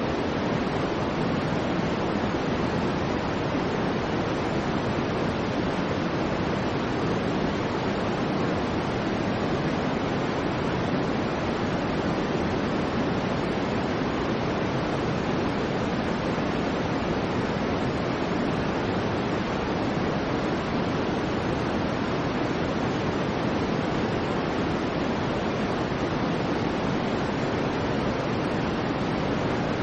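Soft white noise: a steady, unchanging hiss, fuller in the lows and mids than in the highs, so it sounds deeper and gentler than harsh white noise.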